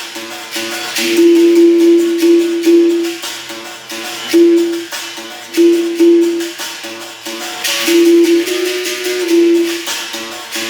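Berimbau being played: its single steel string is struck repeatedly with the stick, ringing on one note with changes to a nearby pitch, and the caxixi rattle shakes with the strokes.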